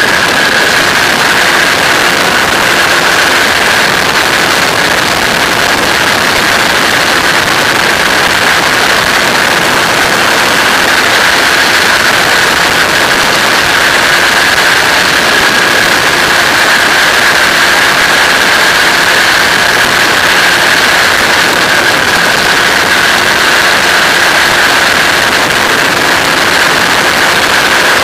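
Flex-wing microlight trike in steady cruise: the engine and propeller drone on without change, mixed with heavy wind rush over the open cockpit. A constant high whine runs through it.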